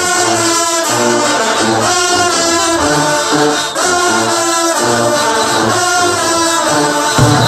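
Bahamian background music led by brass horns over a rhythmic bass line.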